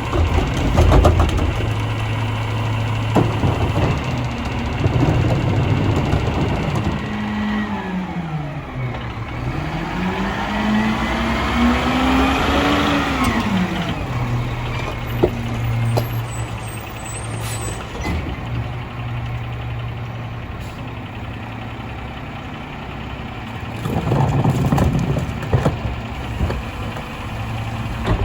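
Mack LR rear-loader garbage truck's diesel engine idling, its pitch dropping, climbing and falling back again for several seconds midway as it revs. Clusters of clunks and bangs come near the start and again near the end.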